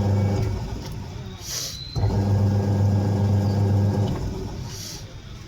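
Samsung top-load washing machine's motor humming in on-off pulses: the hum cuts out just after the start, comes back abruptly about two seconds in, runs for about two seconds and stops again. Two brief high hisses are heard in the gaps.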